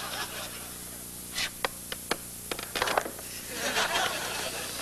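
Script pages and a plastic folder being handled: scattered sharp clicks and paper rustles, thickening into a longer rustle near the end, over a steady low hum.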